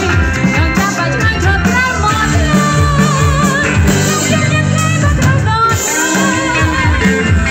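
Loud dance music with a singing voice over a steady beat.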